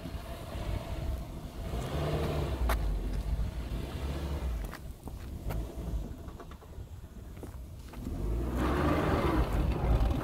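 Suzuki Jimny's 1.5-litre four-cylinder petrol engine running at low speed as the small 4x4 crawls over steep, uneven dirt mounds, with a few sharp clicks and knocks from the vehicle on the rough ground. It dips quieter in the middle and gets louder again near the end.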